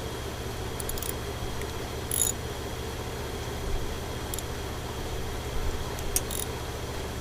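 Scattered metallic clicks and clinks of hand tools working bolts on a motorcycle, a few at a time, over a steady low background hum.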